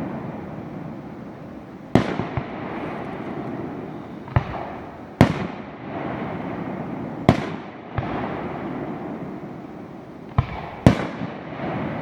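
Aerial fireworks display shells bursting in the distance: about seven sharp bangs at uneven intervals, a few in quick pairs, each trailing off in a long rumbling echo.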